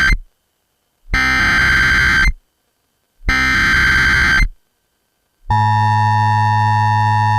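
Emergency Alert System SAME header: the tail of one digital data burst, then two more bursts of about a second each with a second's gap between them. About five seconds in, the steady EAS attention tone starts and holds.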